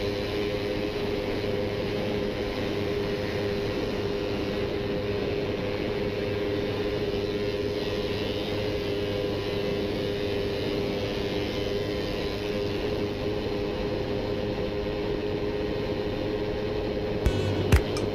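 Motorcycle engine running at a steady, unchanging note while cruising at speed, with wind rushing over the bike-mounted microphone. Near the end, a few sharp clicks cut in.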